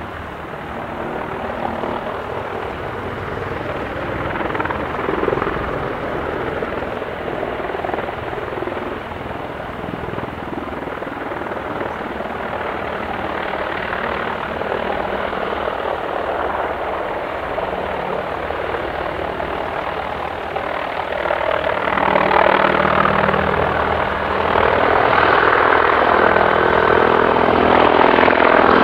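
Mi-28N attack helicopter's main rotor and twin turboshaft engines running steadily as it hovers low and then flies off. The sound gets louder about 22 seconds in and again near the end as the helicopter passes close.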